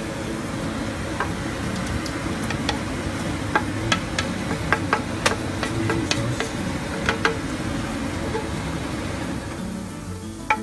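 Metal spoon clinking and scraping irregularly against a cooking pan as thick masala sauce is scooped into a second pan, over a steady low hum.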